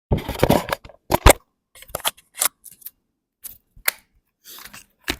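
Close handling noise: a short rustle of something being picked up, then a series of sharp, irregular plastic clicks and taps, the loudest pair about a second in.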